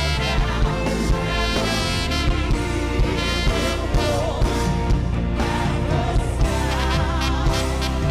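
Live worship band playing with a steady drum beat under sustained chords, between sung lines of the song.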